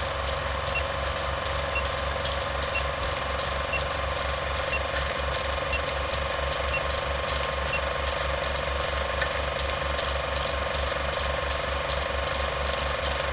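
Film projector sound effect: the projector mechanism clattering at an even rhythm of about five clicks a second over a low hum. A short high countdown beep sounds once a second and stops about eight seconds in.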